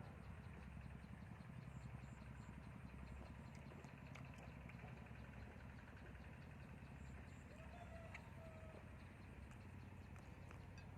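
Faint steady low hum of a running motor, with a few scattered light clicks.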